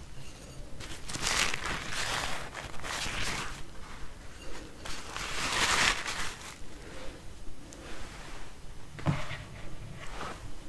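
Paper napkins being rustled and crinkled by hand close to the microphone, in several bursts of crackly rustling. Near the end come two light knocks.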